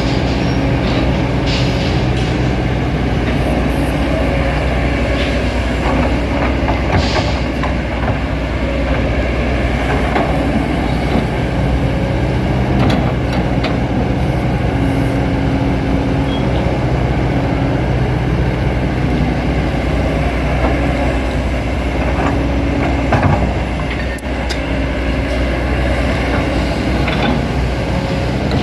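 Kobelco SK200 hydraulic excavator digging soil: its diesel engine running steadily under load, with scattered knocks as the bucket works the ground.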